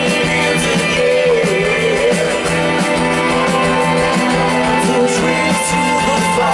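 A rock band playing live, an instrumental passage with no singing.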